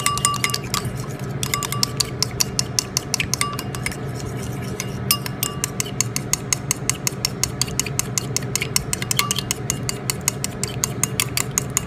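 A metal spoon briskly stirring lemon juice and olive oil in a small bowl, clicking against the sides about six times a second, with a short break about a second in. The lemon dressing is being mixed together.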